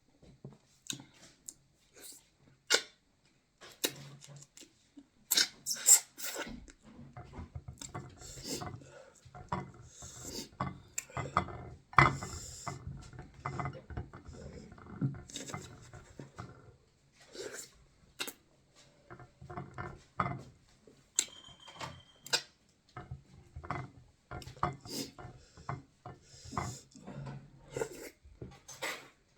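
Close-miked eating of fufu: chewing and mouth smacking in an irregular run of small clicks, with occasional clinks of a dish.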